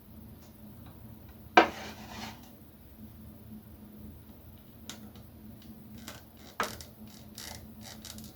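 Hard plastic figure parts clicking and knocking together as they are handled and fitted: a sharp knock about a second and a half in with a short rattle after it, another sharp click near the end, and lighter clicks in between.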